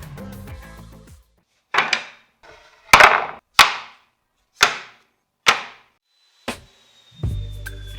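Hammer blows on wood: about six separate sharp strikes at an uneven pace, each with a short ringing tail. Background music fades out before the strikes and comes back near the end.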